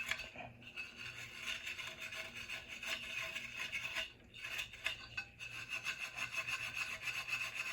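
Steel wool scrubbing the white buildup off the thermopile of a gas water heater's pilot assembly: a quick, rasping back-and-forth rub with a brief pause about four seconds in. The buildup is what makes the pilot keep going out, and scrubbing it off is the fix being tried.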